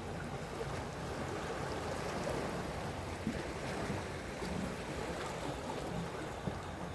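Sea waves washing and lapping against the shore, a steady wash of noise with a low rumble underneath and small irregular splashes.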